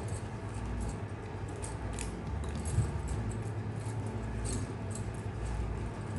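Plastic basket-weaving wire strands rustling and clicking against each other as hands weave them, over a low steady hum.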